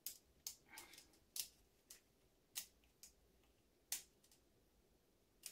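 Near silence broken by faint, irregular small clicks and taps, about nine of them unevenly spaced, from the hand-held airsoft spring-test rig: the piston, spring and string with the hanging weight plates.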